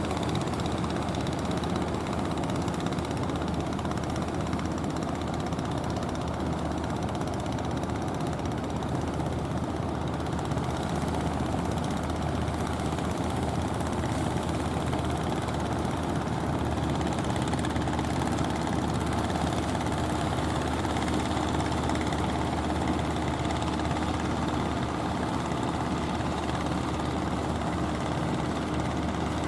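Motor boat's engine running steadily, an even low drone that does not change in pitch or level.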